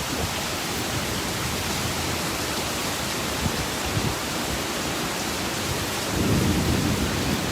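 Heavy storm rain and wind during a tornado, a steady rushing noise that swells louder and deeper about six seconds in.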